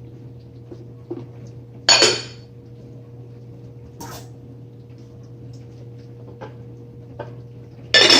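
Dishes and utensils clattering: two loud ringing clinks about two seconds in and near the end, with a few lighter knocks between, over a steady low hum.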